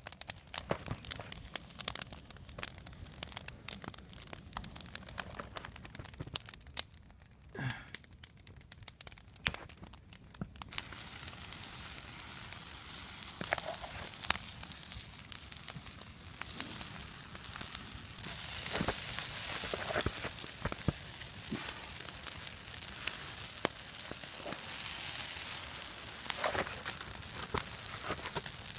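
Open campfire of twigs and green conifer boughs burning on snow. Scattered sharp crackles at first; from about ten seconds in, a steady hiss with crackles and pops over it.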